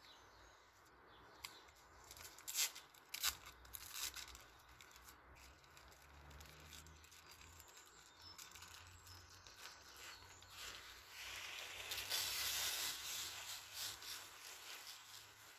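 A packet being handled and torn open by hand: a few sharp clicks in the first few seconds, then louder crinkling and tearing for a few seconds past the middle.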